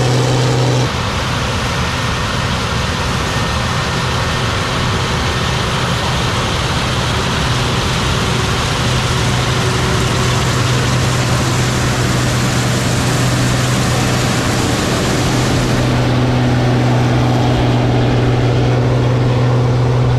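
Heavy farm machinery engine running steadily under a rushing noise. The sound changes abruptly about a second in and again near the end.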